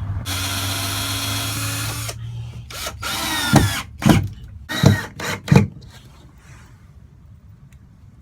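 Power drill driving screws into a van wall panel: it runs steadily for about two seconds, then gives four short, loud bursts as the screw is snugged down.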